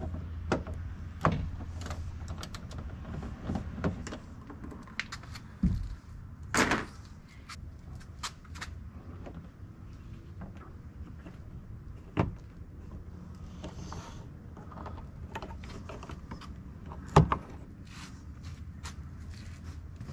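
Hand work on a Sprinter van's grey plastic door trim panel: scattered clicks and taps as Torx screws are backed out and the panel is handled, with a louder knock and a short scrape about six seconds in.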